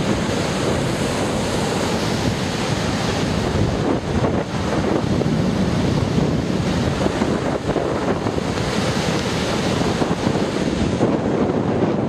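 Rough storm surf breaking and washing up a sandy beach in a steady, continuous rush, with wind buffeting the microphone.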